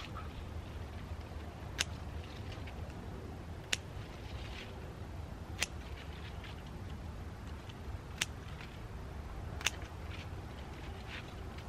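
Scissors snipping coleus stems and leaves while taking cuttings: five sharp snips about two seconds apart, with faint rustling of the foliage between them.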